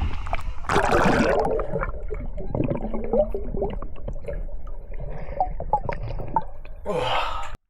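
Water sloshing and dripping with scattered splashes, and a louder burst of splashing about a second in.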